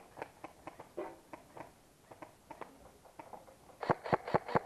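Footsteps pushing through dry undergrowth, with twigs and leaves crackling underfoot, breaking into a run near the end at about four steps a second.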